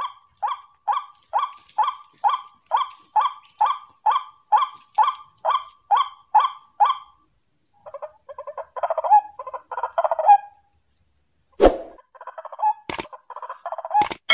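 White-breasted waterhen calls: a long, even run of short falling notes, about two a second, then a more jumbled stretch of calls. A few sharp clicks near the end.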